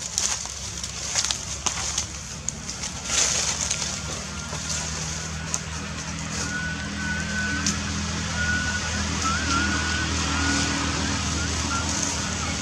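A vehicle engine running with a steady low hum. A thin, wavering whistle is heard from about three seconds in until shortly before the end, and a few sharp clicks stand out.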